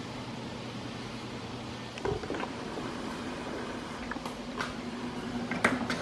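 Arno 40 cm electric fan running steadily: a whooshing airflow with a low hum. There is a knock about two seconds in, after which the hum sits higher, and a few sharp clicks near the end as the fan's control button on its base is handled.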